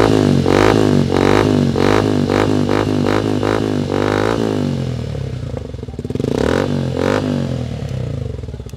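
Suzuki Gixxer SF 150's single-cylinder engine through a LeoVince carbon-finish slip-on silencer, the throttle blipped in quick repeated revs, about three a second. About five seconds in it settles to a steady idle, with one more short rev near the middle.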